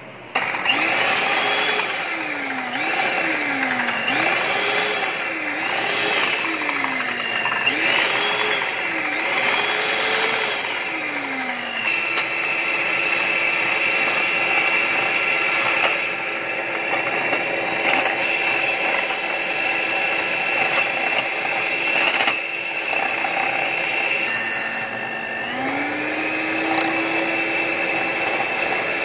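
Electric hand mixer whipping egg whites into foam, then beating yolks. Its motor whine swings up and down in pitch again and again for the first ten seconds or so, then holds a steady pitch, with a dip and climb back near the end.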